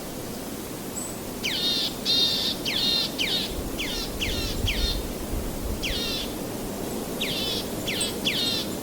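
A songbird calling: about a dozen short notes that each sweep down in pitch, coming in quick runs of three to five with short gaps. Behind it runs a steady rush of waves.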